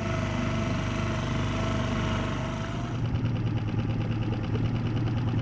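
Outboard motor on a small inflatable boat running steadily; about three seconds in the sound shifts to a deeper, even hum.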